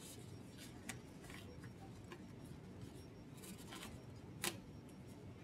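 Faint crinkling and a few small snaps of sterile gloves being pulled on and worked down over the fingers, with a sharper click about four and a half seconds in.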